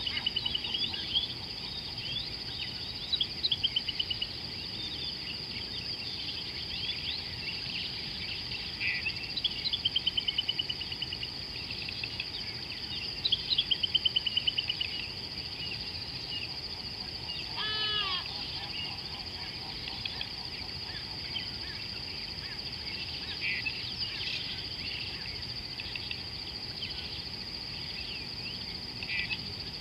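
Wild birds calling over a steady, high-pitched insect drone. Four bursts of rapid repeated notes come in the first half, and one lower, fuller call comes about 18 seconds in.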